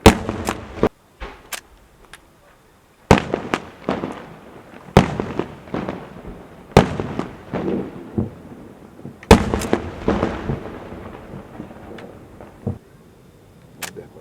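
Maltese festa fireworks going off: about a dozen loud bangs at irregular intervals, some in quick succession, each followed by an echoing rumble. The loudest bangs come at the very start.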